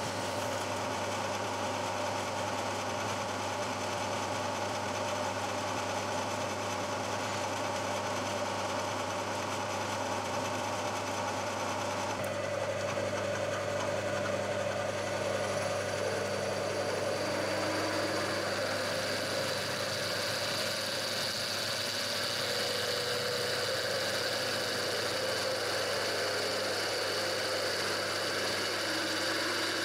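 Milling machine spindle running steadily while a twist drill cuts through a steel plate. About twelve seconds in, the sound changes abruptly as a larger twist drill takes over, with a brighter, higher tone.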